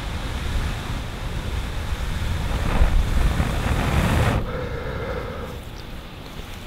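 Wind buffeting the microphone as a steady low rumble, swelling in a gust about three to four seconds in, then dropping away suddenly.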